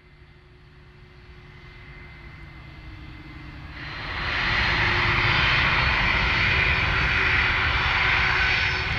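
Jet engines of a taxiing Boeing 747-400: a faint, slowly growing whine and rumble that turns much louder about four seconds in, then holds as a steady rushing jet noise over a low rumble.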